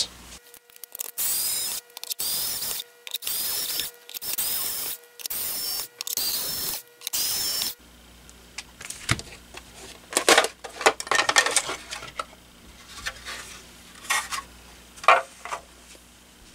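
Power screwdriver backing out the screws of a plastic air-compressor case in about seven short runs, each with a rising and falling motor whine. These are followed by scattered clicks and knocks as the plastic case is lifted apart and the screws are handled.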